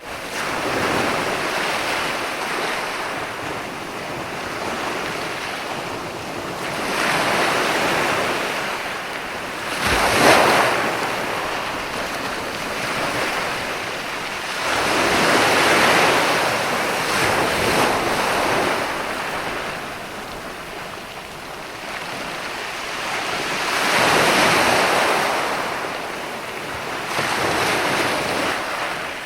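Ocean waves breaking in slow, irregular surges that swell and fall back every few seconds, with one sharper, louder crash about ten seconds in.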